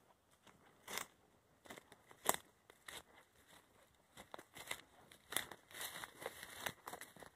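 Faint footsteps through grass and undergrowth, each step a short rustle, coming irregularly about one or two a second.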